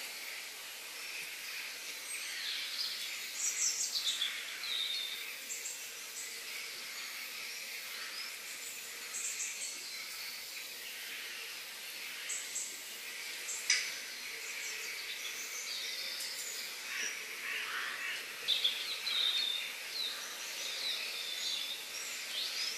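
Forest ambience: many birds chirping and calling over a steady insect hiss, with one sharp click about fourteen seconds in.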